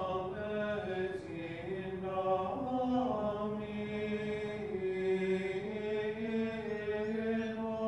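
Benedictine monks chanting together: male voices on long held notes that move slowly in pitch.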